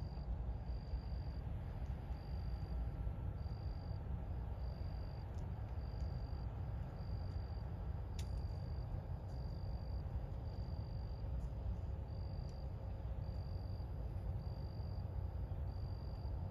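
A short high-pitched chirp repeats evenly a little more than once a second, like an insect calling, over a steady low rumble, with one faint click about halfway through.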